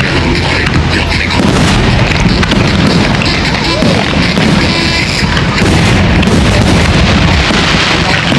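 Aerial fireworks going off in quick succession, a steady run of deep booms with crackling over them, with music playing along.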